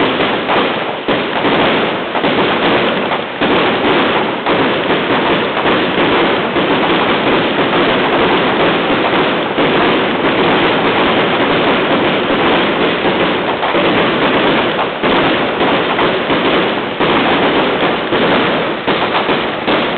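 Fireworks going off in a loud, dense, unbroken barrage of crackles and bangs.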